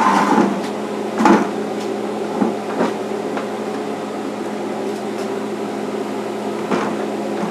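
Steady hum from the Grainfather brewing unit as its wort heats to just short of the boil, with a few metallic knocks and clunks as the stainless-steel grain basket is lifted out of the boiler. The two loudest knocks come near the start.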